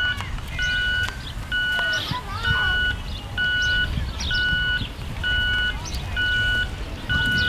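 An electronic warning beeper sounding evenly about once a second, each beep about half a second long, over a steady low rumble.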